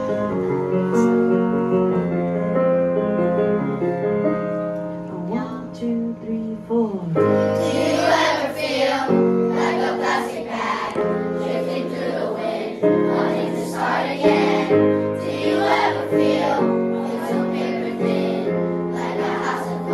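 An instrumental accompaniment plays an introduction, and about seven seconds in a class of young children starts singing along with it as a group.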